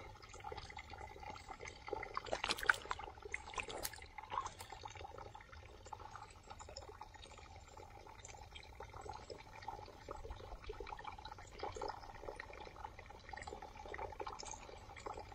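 Shallow pond water splashing and lapping around a large koi held by hand in the water, with a few brief, louder splashes, the strongest about two and a half seconds in.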